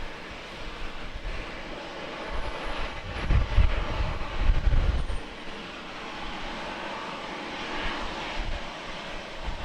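Jet airliner engines running, a steady broad noise with a heavier low rumble swelling for a few seconds in the middle.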